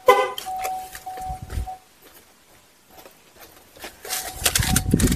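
A TPMS relearn tool beeps in short, repeated tones as it triggers a tyre-pressure sensor. Right at the start a short, loud honk from the 2018 Buick Enclave's horn signals that the sensor has been matched to that wheel. Near the end comes a burst of scuffing, rumbling handling noise.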